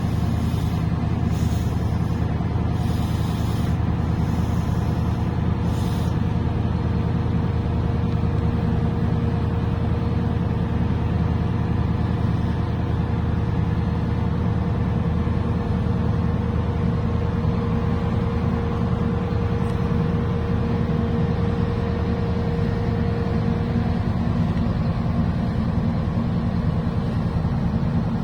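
A large engine running with a steady low rumble. A few short hisses come in the first six seconds, and a steady hum tone sounds through the middle.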